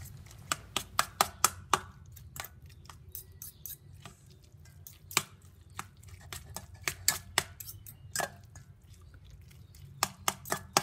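Two metal forks clinking and scraping against a stainless steel bowl as cooked fish fillets are shredded: irregular sharp clicks, coming in small clusters.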